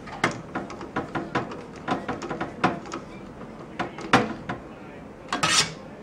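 Irregular light metallic clicks and taps of a screwdriver and small screws against a steel computer case while a motherboard is being screwed down, with a short scrape about five and a half seconds in.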